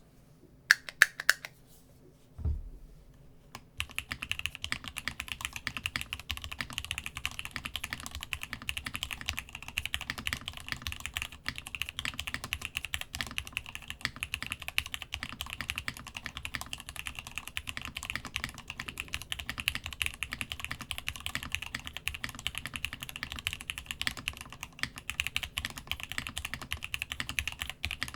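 Typing on a Masjewerke Muramasa mechanical keyboard with lubed, spring-swapped Gateron X switches and DCD Gondor keycaps, on a thick desk mat. A few separate key clicks come about a second in and a single low thud comes a little later. Steady continuous typing starts about four seconds in.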